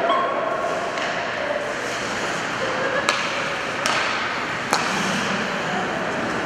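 Ice hockey play on a rink: a steady wash of skates on the ice, broken by three sharp clacks of sticks and puck about a second apart around the middle.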